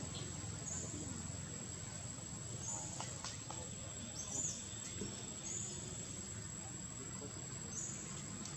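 Outdoor ambience: a steady high-pitched whine with short high chirps every second or two, over a steady low rumble.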